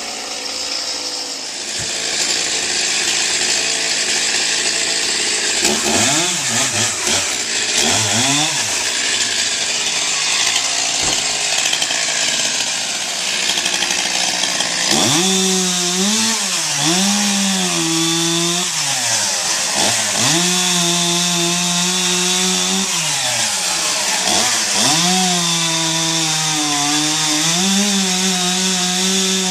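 Two-stroke chainsaw cutting wood. In the first half it revs only briefly, twice. From about halfway it is throttled up again and again, each time climbing to a high held note, sagging under load and then dropping back.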